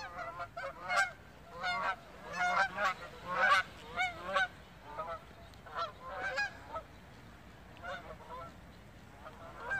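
A flock of wild geese honking as they fly overhead, many short calls overlapping, thickest in the first few seconds and growing sparser toward the end.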